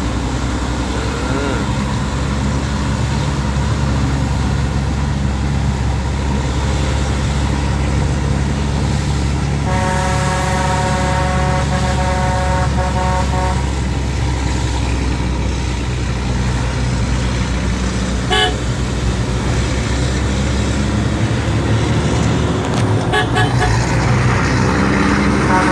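Heavy diesel truck engine running steadily on engine brake (Jake brake) on a downhill descent, heard from inside a cab. About ten seconds in, a vehicle horn sounds for about four seconds.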